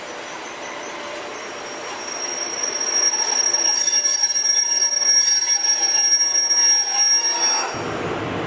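FS E.652 electric locomotive hauling a freight train through a station, growing louder as it comes close, with a high steady squeal over the running noise. Near the end the sound cuts abruptly to a lower rumble.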